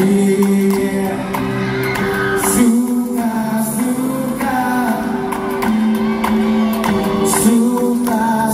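Song with a singing voice over steady held chords that change every two to three seconds.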